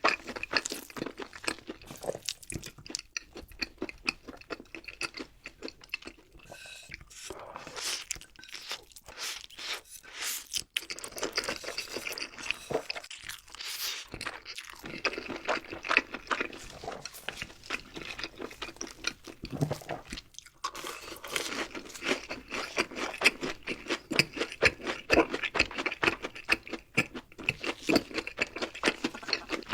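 Close-miked eating: crunchy bites into fried food and chewing, a dense run of crisp crunches.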